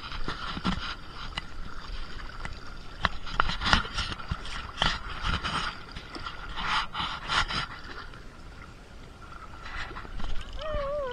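Sloshing and splashing of feet wading through shallow water, heard muffled through a waterproof action-camera housing, with many short knocks and scrapes of the housing being handled. A voice comes in near the end.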